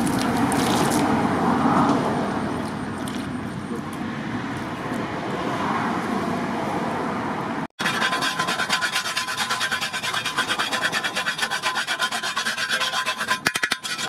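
Water poured onto a heated steel plough disc, splashing and sizzling as it steams, for about the first seven and a half seconds. Then, after a cut, a hand file rasping across the disc's edge in quick, regular strokes, sharpening the rim.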